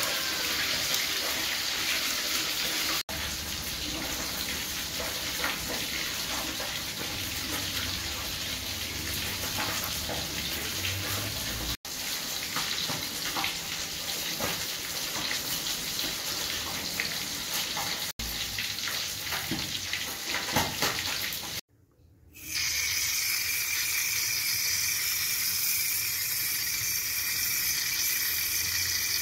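A steady hiss with faint clicks and scrapes, broken by several abrupt cuts. About three quarters of the way through, after a brief drop, comes an outdoor tap running steadily, its water pouring over a mango held in the stream.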